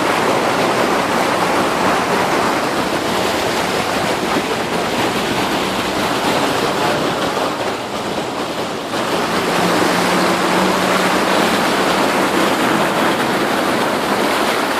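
Loud, steady rush of heavy rain and floodwater, easing briefly about eight seconds in, with a faint low hum underneath.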